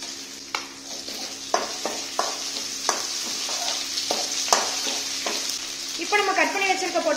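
Onions and curry leaves sizzling in hot oil in a steel kadai, stirred with a metal spoon that clicks and scrapes against the pan several times.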